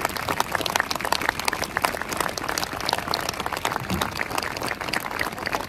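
Large crowd applauding: many hands clapping in a dense, irregular patter.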